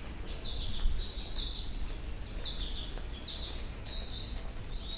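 Small birds chirping: short high calls repeating about once or twice a second, over a steady low rumble.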